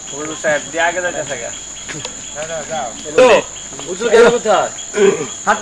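Steady, high-pitched drone of insects in the forest, with several people talking over it.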